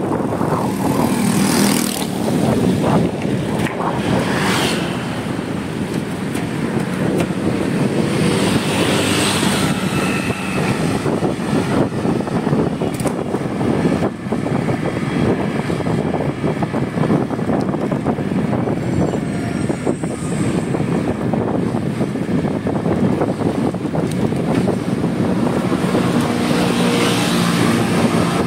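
Steady rush of wind and vehicle road noise from riding along a paved road.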